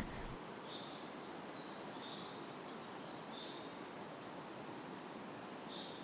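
Faint, scattered short bird chirps over a steady outdoor background hiss.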